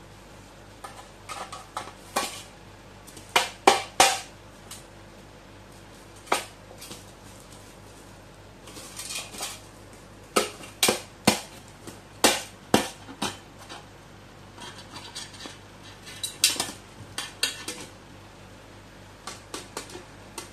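A crow's beak pecking and prying at a tin pencil case: irregular metallic taps and clinks, some in quick runs, with short spells of scraping, as it flips the case over and pries the lid open.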